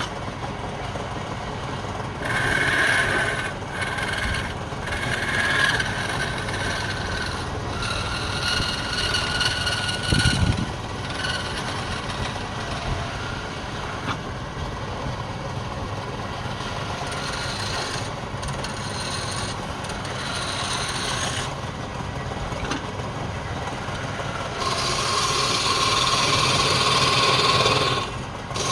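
Wood lathe running with a steady motor hum, while a turning tool cuts the spinning wood in several separate passes, each a rasping scrape a second or more long.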